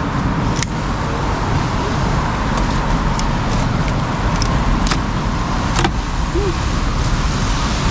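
Steady street noise of passing road traffic, with a few sharp clicks.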